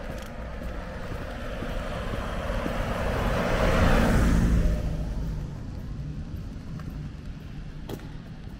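A car passing by: tyre and engine noise swells to a peak about four seconds in, then fades away.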